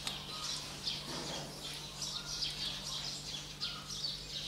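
Small birds chirping, short high falling calls about twice a second, over a faint steady low hum.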